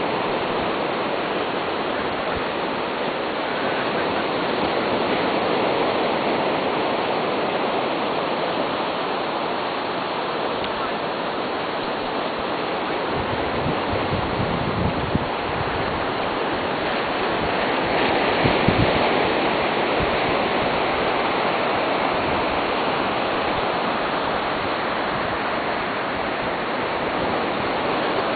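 Steady rushing wash of shallow seawater and small waves over a beach sandbar, with a few low rumbles about halfway through.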